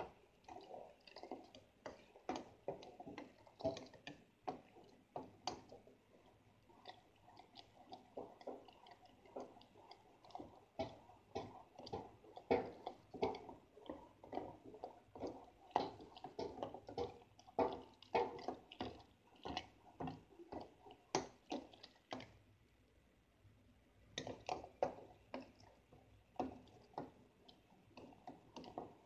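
Hot chocolate stirred in a small aluminium pot with a long black utensil: liquid swishing, with irregular clicks and taps of the utensil against the metal sides, several a second. The stirring pauses for a couple of seconds about three-quarters of the way through.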